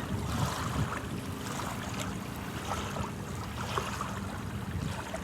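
Ocean surf washing steadily, with a low rumble of wind on the microphone.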